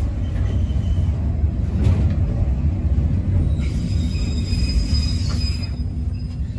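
Choshi Electric Railway train running along the track, heard from aboard: a steady low rumble of wheels and running gear, with a faint high squeal from about three and a half seconds in that lasts about two seconds.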